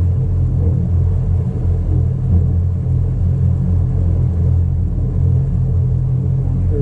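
Steady, loud low drone of a towboat's engine running at constant speed.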